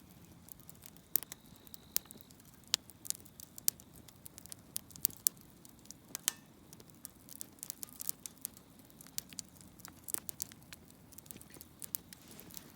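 Wood campfire crackling, with irregular sharp pops and snaps several times a second over a faint low hiss of the flames.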